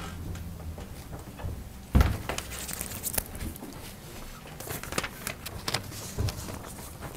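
Quiet classroom with students writing: scattered rustling and small clicks of paper and pencils, with a single heavy thump about two seconds in and footsteps.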